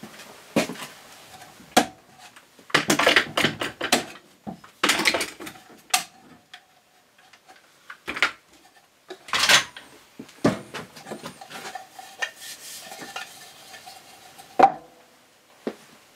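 Irwin one-handed quick-grip bar clamps being released from a glued-up box and set down on a wooden workbench: an irregular run of clicks and clattering knocks of plastic and steel. A faint metallic ring lingers after some of the knocks.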